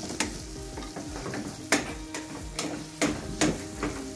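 Sliced onions frying with curry paste in a stainless steel pan, sizzling steadily. A spoon stirs them, knocking and scraping against the pan about six times.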